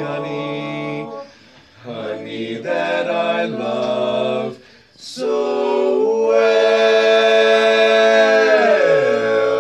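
Male vocal quartet singing a cappella in close harmony: a few short phrases, then one long held chord, with the lower voices sliding down to a new chord near the end.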